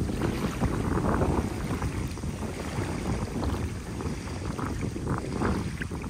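Wind buffeting the microphone: a rough, rumbling rush that swells about a second in and again near the end.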